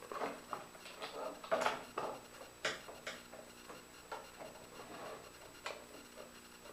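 Light knocks, clicks and scraping of wood on the saw table as a wooden dial-indicator jig is slid and fitted into the table saw's slot by hand, with a few sharper taps scattered through.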